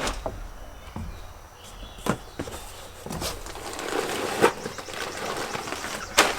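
Unboxing noises: bags of wood pellets and packaging being handled in a cardboard box, rustling with a scattering of short sharp knocks and clacks.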